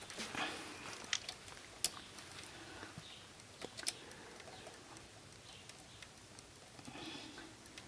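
Faint rustling and a few sharp small clicks of hand work on the SCV valves and their wiring in a Toyota D4D diesel engine bay, the sharpest clicks about two seconds and four seconds in.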